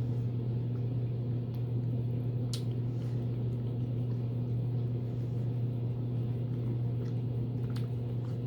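A steady low hum from a running fan or appliance, with a few faint soft clicks scattered through it.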